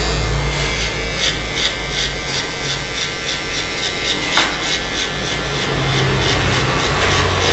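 Electric hair clipper running with a steady buzz while its blade rasps through short hair at the nape in quick repeated strokes, several a second. It is cutting the bottom of a fade down to the shortest setting.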